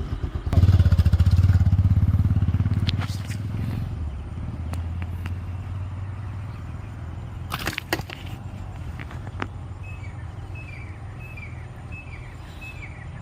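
A low engine rumble, loudest in the first few seconds and then easing off. A few sharp clicks come near the middle, and short repeated bird chirps near the end.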